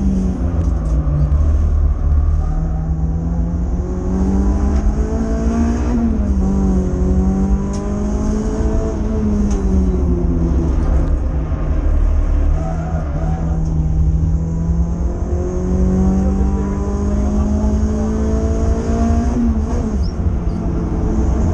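Renault Clio 182's 2.0-litre four-cylinder engine at high revs, heard from inside the cabin, climbing in pitch and dropping back several times as the car is driven hard through gears and corners, over a steady low rumble of road and drivetrain noise.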